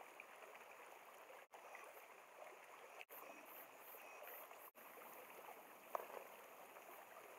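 Faint steady rush of a mountain stream, broken by a few very brief dropouts, with one light knock about six seconds in.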